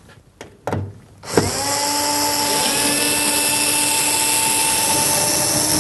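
Electric screwdriver undoing the hinge screws on a tumble dryer door: after a short knock, the motor starts about a second and a half in, rises briefly in pitch and then runs at a steady whine.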